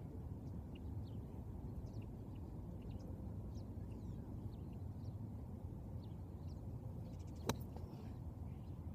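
Steady wind rumble on the microphone with faint, scattered bird chirps. About seven and a half seconds in, one sharp click of a golf club striking the ball on a tee shot.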